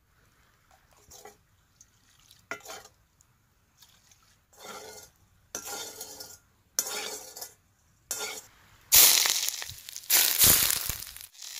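Cooking sounds: a few short, separate scrapes and clinks of utensils against cookware, then a loud, continuous sizzle of hot oil from about nine seconds in.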